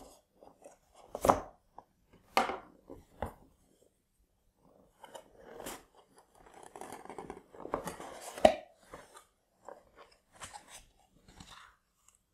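Hands handling and opening a cardboard model box: scattered knocks, scrapes and rustling of cardboard and foam packing, the loudest knock about two-thirds of the way in.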